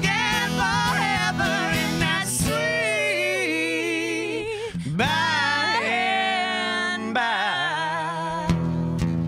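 A male and a female voice singing a country gospel song together to acoustic guitar. About two and a half seconds in, the guitar drops out and the voices sing alone in long, sliding notes; the guitar comes back strumming near the end.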